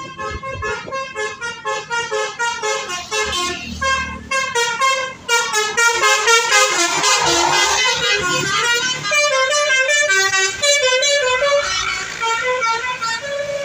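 Bus 'basuri' telolet horn, a multi-note musical air horn, playing a quick tune of short stepped notes, several a second. Near the end it plays a few longer held notes.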